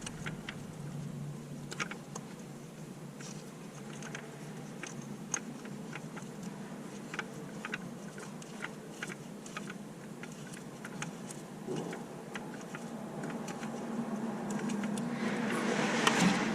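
Light, scattered clicks and ticks of hand work with a small bolt and sensor on the engine, over a steady low hum. A louder rustling noise builds near the end.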